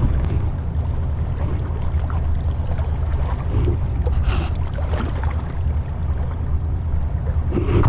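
Wind rumbling and buffeting on the microphone, with a few faint clicks and a brief faint chirp about four seconds in. The rumble cuts off suddenly at the end.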